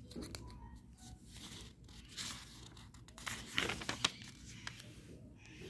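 Paper pages of a printed book being handled and turned: a run of soft rustles and crinkles, loudest about two to four seconds in.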